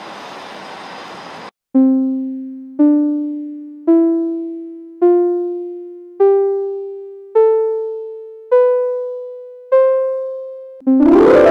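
Rumbling noise of a train on the platform for about a second and a half, cut off abruptly. Then an intro jingle: eight single struck notes, about one a second, each a step higher than the last and fading away, ending in a full sustained chord near the end.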